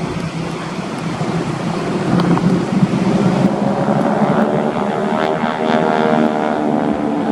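Propeller-driven aircraft engine running during a flypast, with a steady low hum and a stack of engine tones that grows stronger over the second half as the aircraft comes closer.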